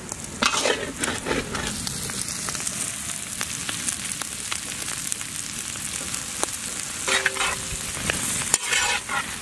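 Chopped goat intestine going into a large kadai of hot oil with shallots and sizzling loudly. There is a louder crackling surge about half a second in as the pieces hit the oil. It settles to a steady frying hiss, and a spatula stirring the pan brings more crackling surges near the end.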